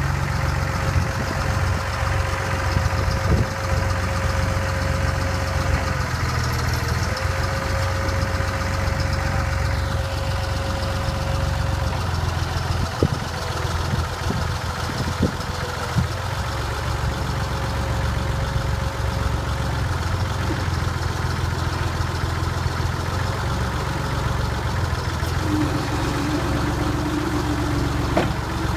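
Balkancar forklift engine idling steadily, with a thin steady whine above the engine and a few sharp clicks.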